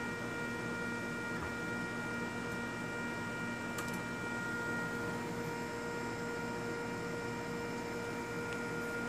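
Steady electrical hum with several held tones from a home-built RepRap Mendel Prusa 3D printer, with one faint tick about four seconds in.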